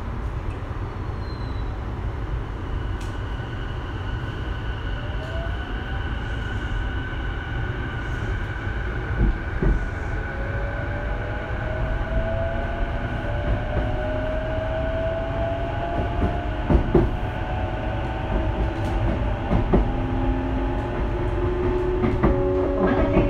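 Sotetsu 12000-series electric train heard from inside a passenger car while running: a steady low rumble, with a whine of several tones rising slowly in pitch from about ten seconds in as the train gathers speed. A few sharp clacks from the wheels and rails break through.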